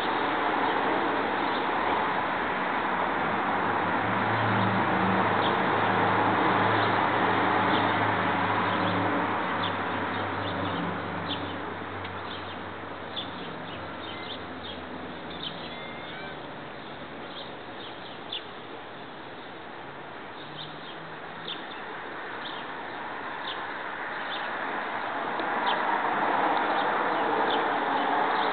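Outdoor backyard ambience: a steady rushing noise that swells and fades, with many short high bird chirps. A low hum comes in about four seconds in and fades out by about twelve seconds.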